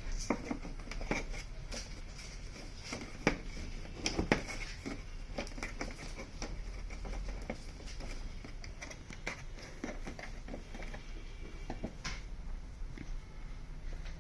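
Irregular light clicks and taps of hands working on a TV's replacement speakers and their screws, with a few sharper knocks about three and four seconds in and again near the end, over a steady low hum.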